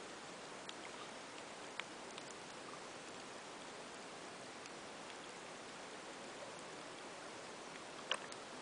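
Underwater ambience picked up by a submerged camera: a steady hiss with scattered sharp clicks, the loudest near the end.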